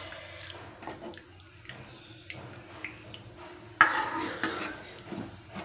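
A metal ladle stirring thick dal in a metal pan: wet sloshing with light scrapes and clicks, and one louder clatter about four seconds in.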